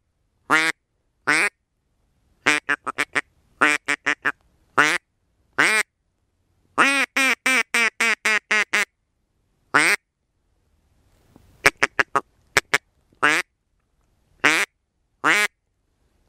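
Hand-held duck call blown in quacking calls. There are single quacks, quick runs of four or five, and a long fast run of about ten a few seconds in. They are loud and separated by short silences.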